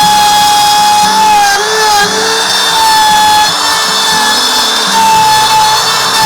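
Laminate trimmer (small router) running at high speed while cutting a hinge rebate into a wooden door through a template; its motor whine dips briefly and recovers several times as the bit bites into the wood.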